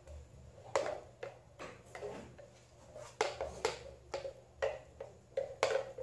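White plastic spatula scraping and knocking against the inside of a plastic blender jar as thick soap paste is scooped out into plastic tubs: a string of irregular knocks and short scrapes, about two a second.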